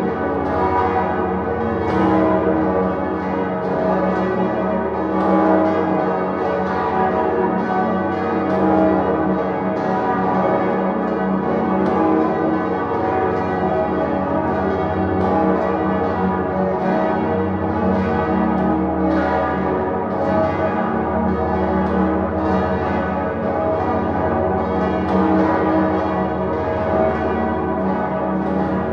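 Full peal of Salzburg Cathedral's seven swinging bells, led by the great Salvator bell and tuned to a minor chord from low E-flat upward: many overlapping strikes several times a second, ringing steadily.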